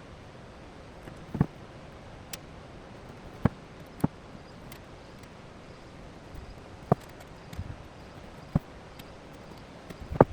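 Sharp knocks and clicks, about seven at irregular intervals, the loudest near the end, over a low steady hiss.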